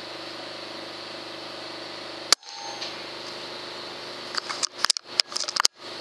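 A single sharp shot from a Daystate Wolverine R .22 PCP air rifle about two seconds in, over a steady hiss and faint hum. Near the end comes a quick cluster of sharp clicks and knocks.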